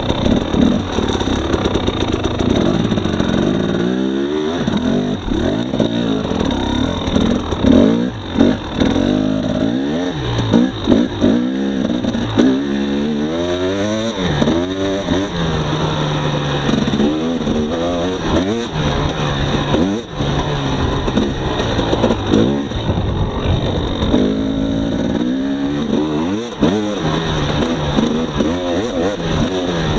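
2018 Husqvarna TX300 two-stroke enduro engine being ridden on a trail, its pitch rising and falling over and over as the throttle is opened and rolled off.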